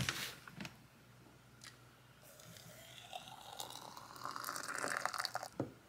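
Water poured from a kettle into a ceramic teapot, rising in pitch as the pot fills, then stopping. A few light knocks come before the pour.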